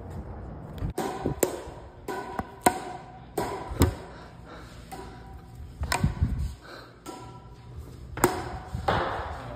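Badminton rackets striking a shuttlecock in a rally: a string of sharp, irregular hits that echo in a large gym hall.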